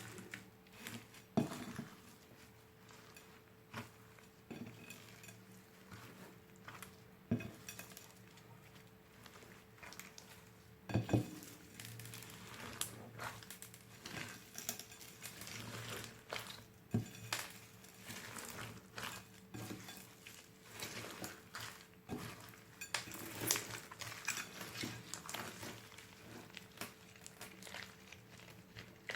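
Slime being mixed, a steady run of small sticky clicks and crackles with clinking like a utensil against a bowl, and a few louder sharp knocks.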